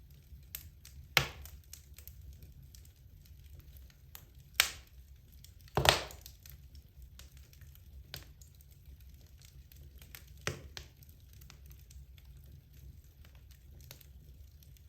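Wood logs burning in a fireplace, crackling with scattered small ticks and a few sharp loud pops, the loudest about six seconds in, over a low steady rumble.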